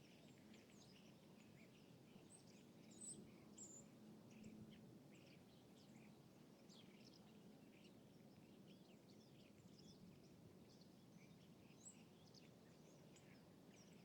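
Quiet city-lake ambience: a steady low background rumble with many small birds chirping and tweeting faintly throughout.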